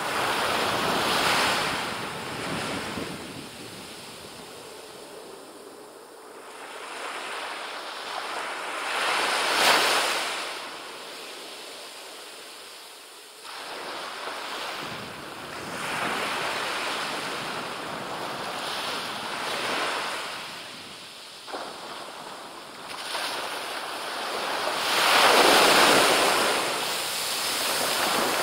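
Small waves breaking on a sandy beach and washing up the shore, the surf swelling and falling back every few seconds, loudest about ten seconds in and again near the end.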